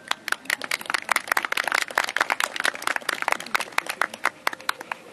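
Crowd of spectators applauding: scattered hand claps that thicken into steady applause, then thin out near the end.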